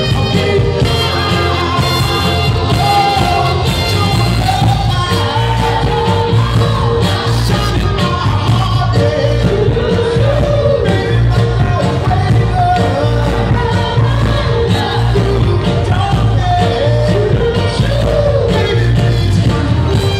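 Philly soul vocal group singing live with a band, men's voices carrying a wavering lead melody over a steady bass and guitar backing.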